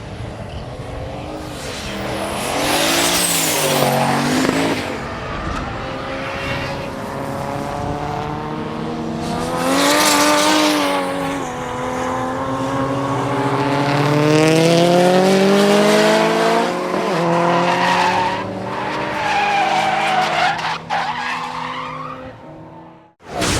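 Performance cars driven hard on a racetrack: engines revving up and falling back through the gears, with tyres squealing in long slides several times. The sound cuts off abruptly near the end.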